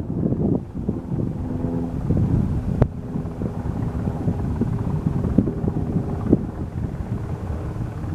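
Wind buffeting the microphone over the steady, distant drone of a Cessna 172R's four-cylinder engine and propeller as it climbs away after takeoff. A single sharp click comes about three seconds in.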